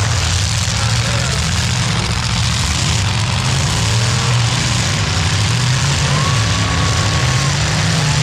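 Several demolition derby cars' engines running together in a loud, steady rumble, revving up and down, under a constant wash of noise.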